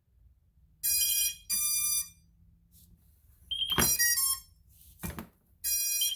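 Electronic beep tones from an RC radio and quad during binding, sounding in short pairs about every two and a half seconds. A couple of sharp clicks fall in between.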